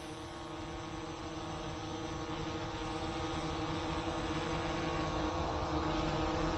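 Autel EVO II quadcopter drone hovering on new propellers: the steady, many-toned hum of its four motors and rotors, slowly getting louder.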